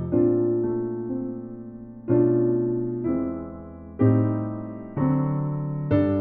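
Keyboard played with a piano sound, a slow piece in two-handed chords. A new chord is struck about once a second and left to ring and fade before the next.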